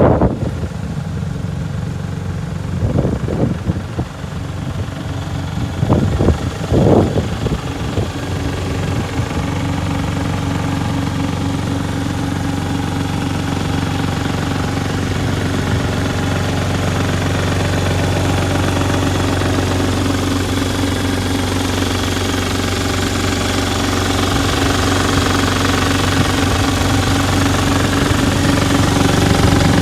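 JCB 8015 mini excavator's diesel engine running steadily, growing a little louder through the second half, with a few short, louder bursts in the first seven seconds.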